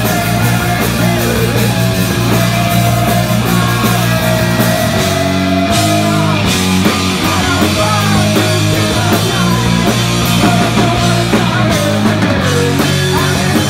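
Live rock band playing in a small room: electric guitar, bass guitar and drum kit, with a woman singing lead and a man singing along. The low end drops out briefly about five seconds in and again near the end.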